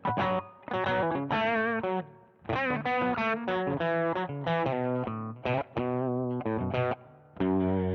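Electric guitar played through a Joyo Deluxe Crunch distortion pedal, a Marshall-style crunch drive, playing a distorted riff of chords and picked single notes in quick phrases, with two brief breaks.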